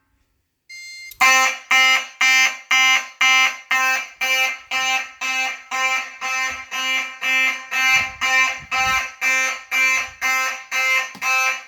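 Fire alarm horn sounding in march-time pulses, a harsh buzzy blast about twice a second, set off by a manual pull station. A brief faint beep comes just before the horn starts.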